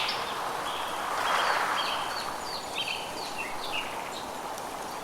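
Birdsong in a forest ambience: a series of short, high, quickly repeated call notes, with a steady background hiss that swells briefly about a second in.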